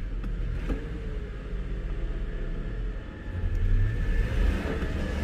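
1995 Lincoln Town Car's 4.6-litre V8 idling, heard from inside the cabin, swelling briefly about three and a half seconds in. It is running with a misfire, which the owner thinks probably just needs spark plugs and wires.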